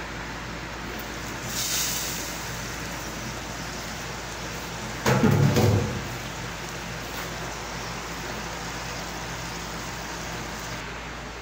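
Sauce simmering in a stainless steel frying pan on a gas burner, a steady sizzling hiss, with a short clatter about five seconds in.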